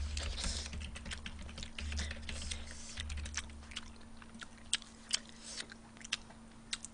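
Computer keyboard being typed on in short irregular runs of clicks, over a faint low hum.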